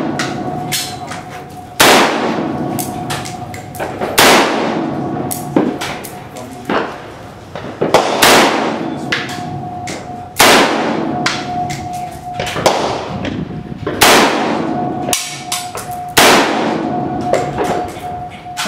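Semi-automatic fire from a Vepr AK-pattern rifle in 5.45x39: six loud single shots about two to four seconds apart, each ringing on afterward. Quieter gunshots from other shooters fall between them.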